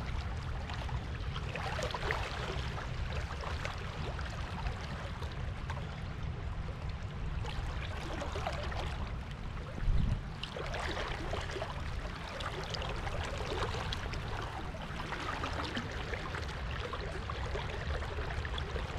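River water running and lapping, with a steady low rumble underneath and one brief thump about ten seconds in.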